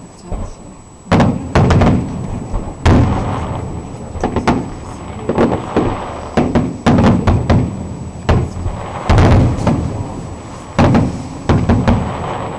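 Aerial firework shells bursting: a series of loud bangs, about a dozen, some in quick clusters, each trailing off in a rolling echo.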